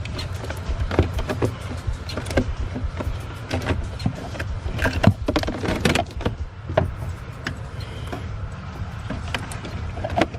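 Irregular clicks, knocks and rattles of hands and tools working loose the hydraulic pump motor of a BMW Z4 convertible top, over a steady low hum.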